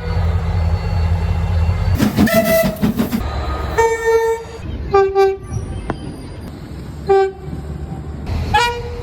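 Irish trains sounding their horns: several short horn blasts, one a quick double, over a low rumble of a train running.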